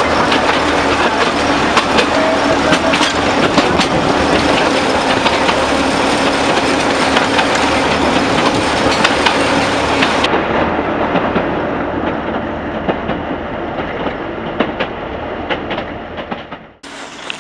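Narrow-gauge forest railway train running: wheels clicking and rattling over the rails, with the diesel locomotive's engine running ahead. The sound becomes duller about ten seconds in and drops out briefly near the end.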